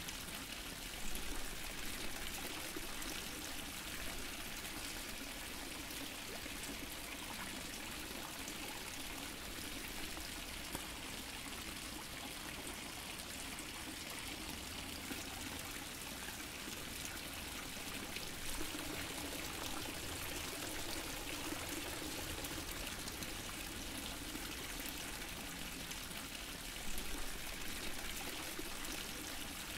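A water fountain splashing and pouring steadily, with a few slightly louder splashes about a second in, midway and near the end.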